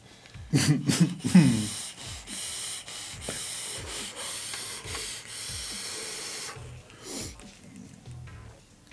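A long draw on a vape fitted with a Lava Monkey Doubleback coil: a steady hiss of air drawn through the firing atomizer for about five seconds, followed by a short breathy exhale.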